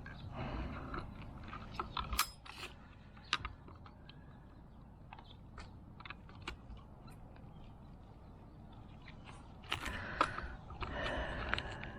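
Hands working on a car fuel pump assembly: scattered sharp clicks and light knocks of parts being handled, with short stretches of scraping and rustling near the start and again from about ten seconds in.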